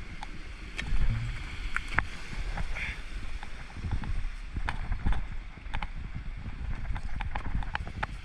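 Stream water sloshing and churning with many scattered sharp clicks, as of stones knocking together while rocks are worked in the streambed.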